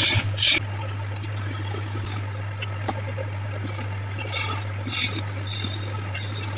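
Small electric wood lathe with its motor humming steadily while a hand-held turning chisel cuts into the spinning wooden goblet blank. The cuts are loud in the first half second, then lighter and intermittent.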